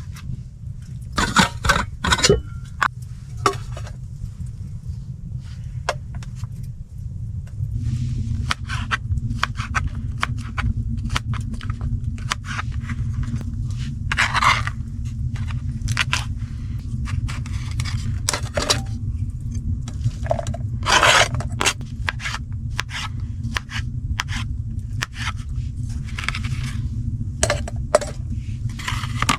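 Irregular scraping and knocking sounds, some sharp and some drawn out, over a steady low rumble.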